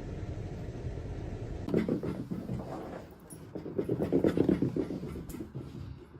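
Close, breathy, pulsing animal sounds starting about two seconds in, loudest around the fourth second, over a steady low rumble.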